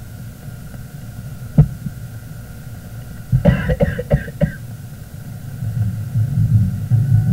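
A man coughing several times in quick succession about halfway through, over the early sound film's steady hum. A single sharp click comes earlier, and a low rumble builds near the end.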